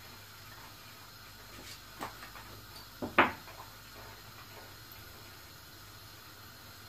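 A few short knocks and clinks of jars and containers being handled on a kitchen counter, the loudest a sharp double knock about three seconds in, over a faint steady hum.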